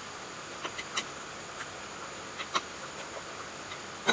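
A few sharp metallic clicks and clinks of a wrench and fittings on a five-horsepower diesel engine being reassembled by hand, spaced out, with a louder clack at the very end.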